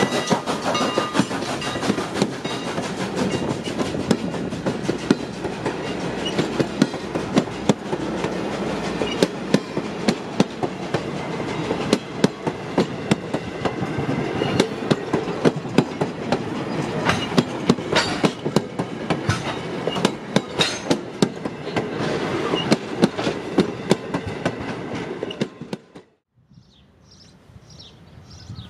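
Heritage steam train's passenger cars rolling past close by, steel wheels clicking steadily over the rail joints with a dense rumble and rattle. About 25 seconds in the sound cuts off abruptly to a much quieter scene with a few faint high chirps.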